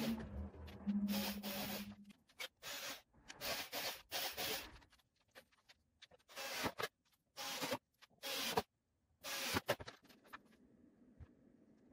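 Short rubbing and scraping noises of hardwood pieces being handled, fitted and clamped on a workbench. They come as about ten separate strokes with silent gaps between them, and stop a couple of seconds before the end.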